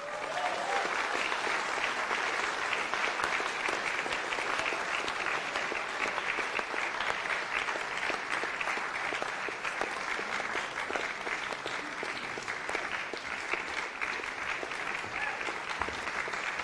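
Audience applause: a crowd of many hands clapping for a prize winner whose name has just been announced. It starts suddenly and keeps going steadily.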